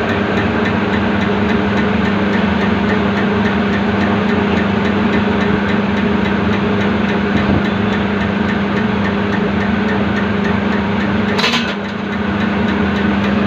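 A MICO diesel fuel-pump test bench running steadily, driving a common-rail pump with a steady hum and a fast, even ticking. Near the end comes a short hiss.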